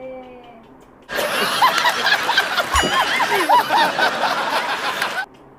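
A canned laughter sound effect: several voices snickering and giggling rapidly. It comes in abruptly about a second in and cuts off suddenly near the end, with a short low thud about halfway through.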